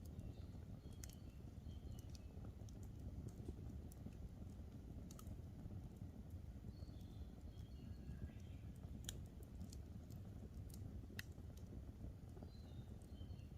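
Wood campfire crackling, with sharp pops scattered through it, loudest a little after the middle, over a low steady rumble of the burning. Faint, short bird chirps sound in the background now and then.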